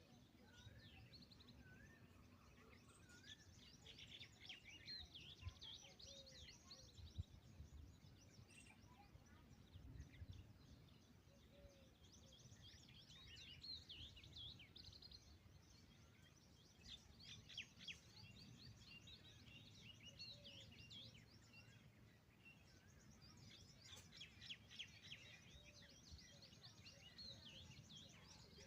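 Faint chorus of small birds chirping and trilling in several bouts, over a low background rumble.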